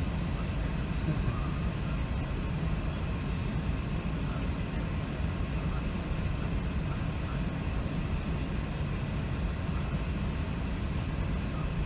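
Steady low rumble of cabin noise inside an Airbus A380 on the ground before takeoff: engines and air conditioning at an even level, with no build-up in power.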